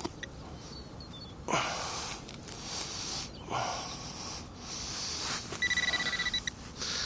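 Handheld metal-detecting pinpointer (pro pointer) probing a dig hole: a few short rustling scuffs in the soil, then about a second before the end a high-pitched rapid beeping as the probe closes on the buried target.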